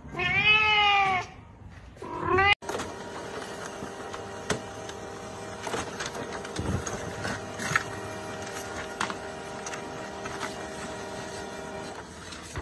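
An adult cat meowing loudly: one long, drawn-out meow that rises and falls, then a shorter one about two seconds in. After an abrupt cut comes a much quieter steady hum with scattered clicks and taps.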